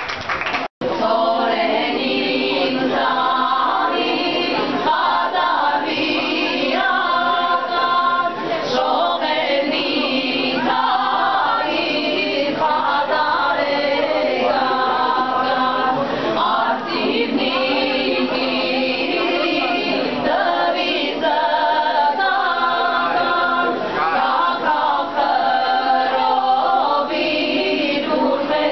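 Women's vocal ensemble singing a cappella. The sound cuts out for an instant less than a second in, then the singing carries on without a break.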